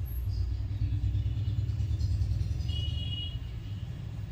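Steady low background rumble, with a faint short high tone about three seconds in.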